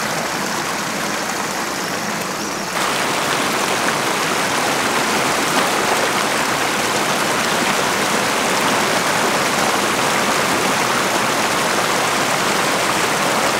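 Muddy floodwater of a rain-filled lagoon rushing steadily over its bank, a continuous noise of running water that steps up a little about three seconds in.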